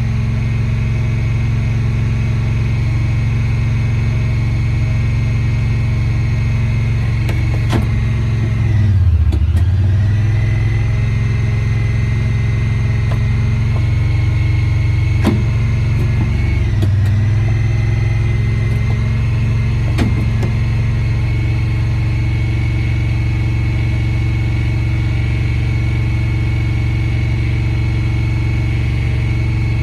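Honda Pioneer 1000 side-by-side engine idling steadily. The revs dip and recover about a third of the way in, and again briefly a little past halfway.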